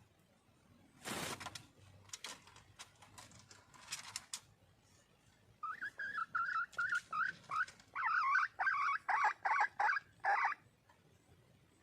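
Red junglefowl hen calling: a run of short, clucking notes, about four a second, that grow louder and longer in the last couple of seconds. A brief scuffing noise comes about a second in.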